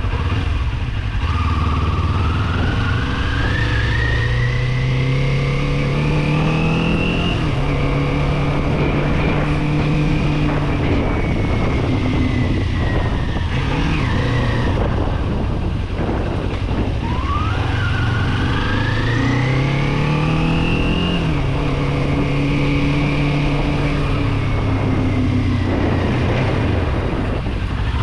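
Kawasaki Z400's parallel-twin engine pulling through the revs on the road: the pitch climbs for several seconds, holds at a steady cruise, then drops back as the throttle eases, twice over, with a short rev blip each time it comes off. Steady wind rush runs underneath.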